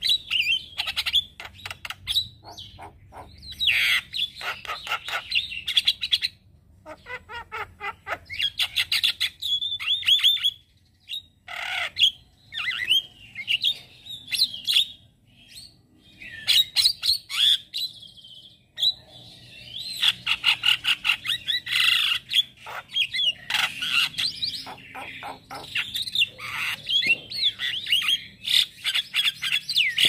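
Male Javan myna (jalak kebo) singing: long runs of rapid, chattering and squawking notes, with a few short pauses between runs.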